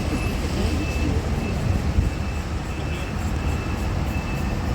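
Engine of a rail maintenance vehicle running steadily with a low rumble during shunting, while a high-pitched warning beeper sounds in short repeated beeps.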